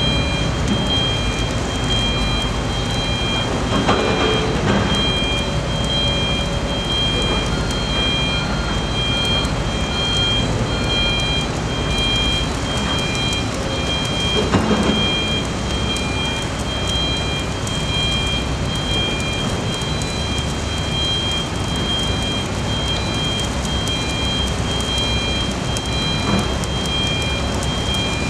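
Crawler crane's diesel engine running steadily at a pile-driving site, a loud, even din with a few faint steady high whines over it.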